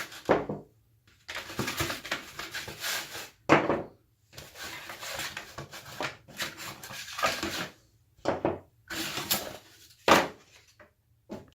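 Circlip pliers being taken out of their cardboard box and handled. Irregular rustling and rubbing, with a few sharper knocks and clinks of metal, one about three and a half seconds in and one near the end.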